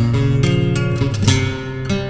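Acoustic guitar playing strummed chords, with a fresh chord struck at the start and another a little over a second in, each ringing on.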